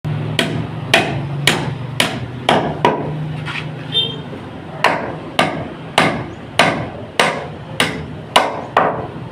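A hammer striking repeatedly at a steady pace, about two blows a second, over a steady low hum.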